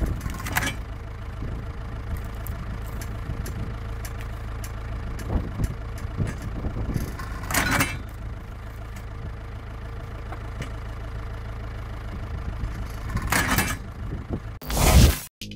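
Engine of a wood-splitting machine running steadily. Brief, louder noisy bursts come through a few times, and a loud one near the end before the sound cuts off.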